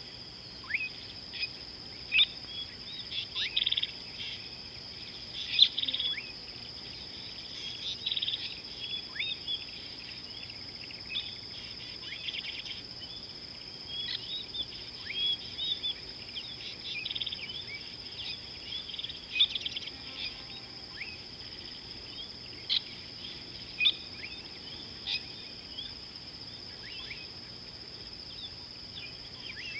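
Many birds chirping and calling in short, quick notes, some sliding down in pitch, over a steady high-pitched insect drone.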